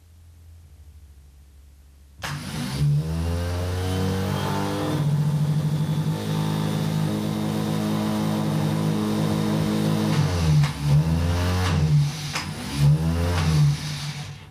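Cutaway car starter motor run free on the bench from battery leads: it cuts in suddenly about two seconds in, whirs up to speed and runs with a steady whine, then slows and picks up again a few times near the end before stopping.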